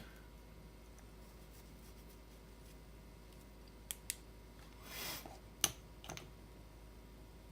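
Faint clicks and a brief rustle from small chainsaw parts being handled during assembly: two quick clicks about four seconds in, a soft rustle just after, then two more clicks, the sharpest near the end.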